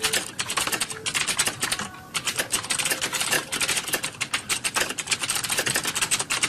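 Fast typing on a computer keyboard: a dense, rapid run of key clicks with a brief pause about two seconds in.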